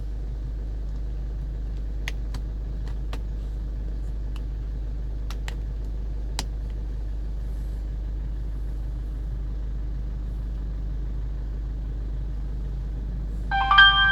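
Steady low hum of a car cabin with a few faint clicks, then a short electronic chime of several held tones near the end.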